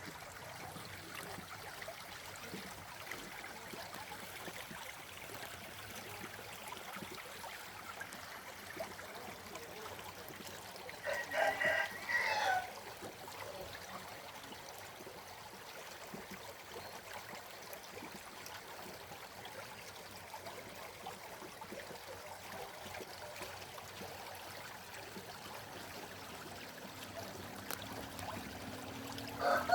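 Steady trickling of running water. A rooster crows once, about a third of the way in, and another crow starts right at the end.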